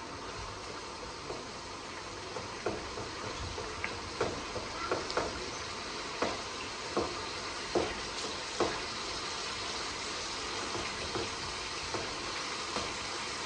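Tomatoes sizzling in a karahi over high heat as they are cooked dry, with a spatula stirring and knocking against the pan about eight times through the middle of the stretch.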